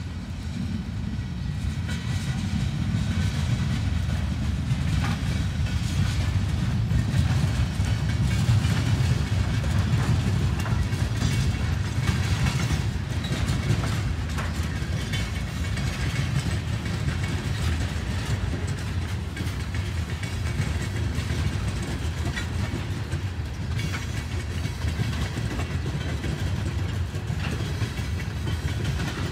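Freight train of covered hoppers and tank cars rolling past: a steady low rumble of steel wheels on the rails, with scattered clicks and clanks.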